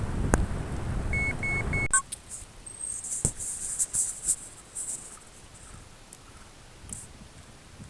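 Wind buffeting the microphone on a moving bicycle, with three short, evenly spaced electronic beeps. About two seconds in the rumble stops abruptly, leaving quieter surroundings with thin, high chirps.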